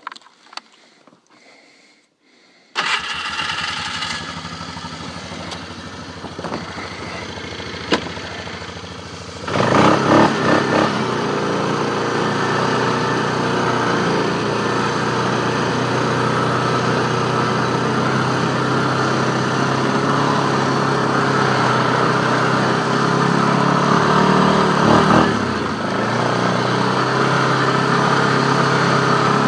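Four-wheeler (ATV) engine starting about three seconds in and idling, then running louder from about ten seconds in as it pulls away and keeps going.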